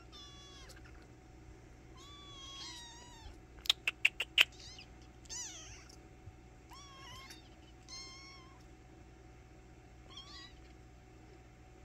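Kittens mewing: a series of short, high-pitched meows, several falling in pitch at the end. About four seconds in, a quick run of five sharp clicks, the loudest sounds here.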